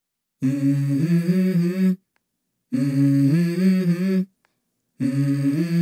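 A single voice humming a short melody with no accompaniment, in three phrases of about a second and a half each with brief silences between them. It steps between a lower and a higher note within each phrase.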